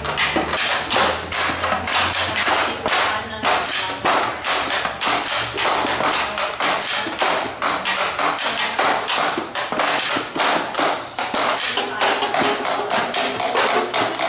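Homemade rubber-band cardboard box instrument, strummed and slapped in a fast, even rhythm: sharp twangy taps of rubber bands snapping against the cardboard.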